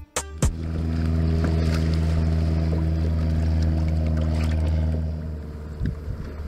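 A boat's steady low drone rises in and holds level for about four seconds, then fades out shortly after five seconds. A faint background with a few small knocks follows.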